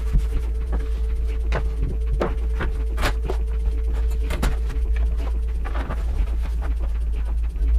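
Irregular clicks, knocks and rustles of leatherette sheets and door-panel backing boards being picked up and laid down on a wooden worktable, over a steady low hum.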